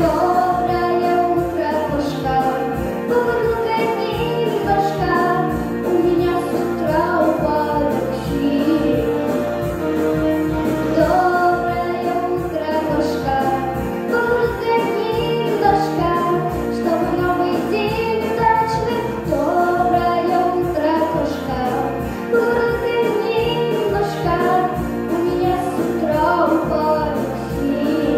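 A young girl singing into a handheld microphone over a recorded instrumental backing track.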